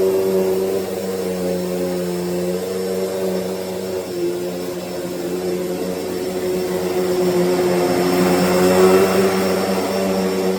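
Hoover Deluxe Elite Rewind upright vacuum cleaner running with a steady motor hum. The rushing air gets louder about eight to nine seconds in.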